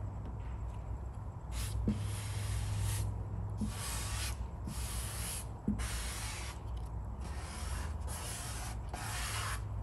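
Plastic vinyl-application squeegee rubbing over a vinyl stripe on a car hood, in a series of short hissing strokes about one a second, pressing the film down onto the paint.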